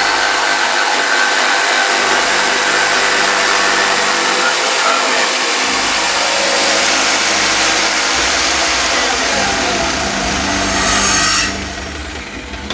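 An electric power tool, such as one used to cut or shape the wooden box, runs steadily with a loud hiss and hum, then cuts off sharply near the end.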